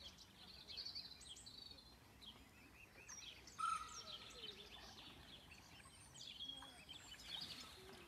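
Faint mixed songbirds chirping and singing, with one louder short whistled note about three and a half seconds in.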